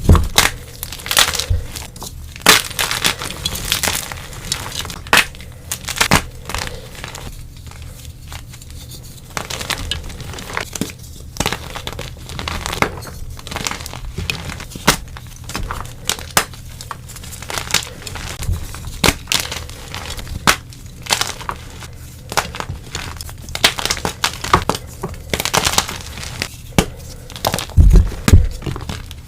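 Dyed gym chalk blocks being crushed and crumbled, giving dense, irregular crisp crunching and crackling. A couple of heavier thuds come near the end.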